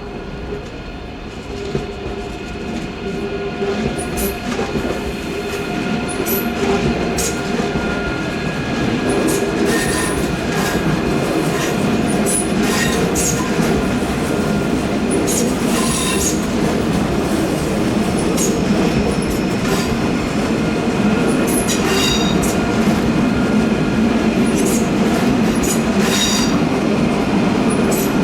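Passenger train rolling slowly through a tight curve, its wheel flanges squealing against the rail in thin high tones and sharp screeches, over steady wheel noise and clacking on the track. It grows louder over the first ten seconds or so as the train comes closer, then stays loud.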